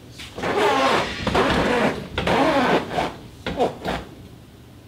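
Electric power steering motor on a HISUN 750 UTV whining as the steering is turned for calibration, its pitch rising and falling in several bursts and ending about four seconds in.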